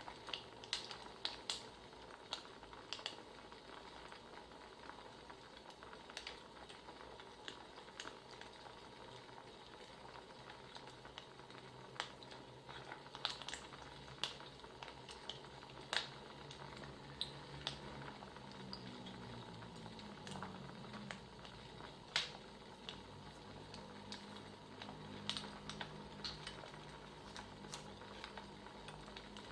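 Wood fire crackling: a soft steady hiss with irregular sharp pops of burning firewood.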